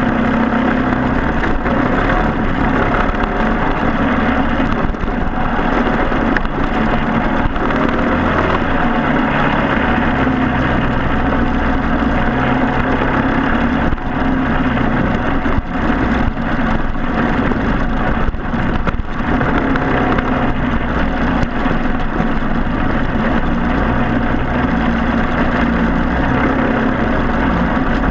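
Briggs & Stratton Animal single-cylinder four-stroke kart engine running hard and steadily under racing load.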